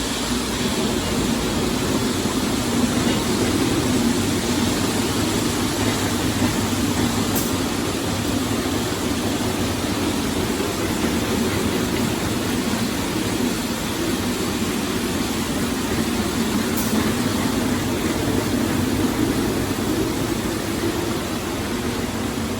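Heavy walk-behind concrete floor grinder running steadily, its diamonds grinding into hard concrete. It is fitted with softer-bond gold diamonds, a set chosen for hard concrete, and is cutting well.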